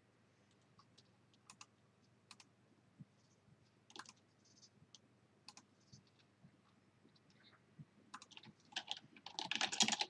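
Computer keyboard: scattered single key clicks, then a burst of fast typing starting about eight seconds in.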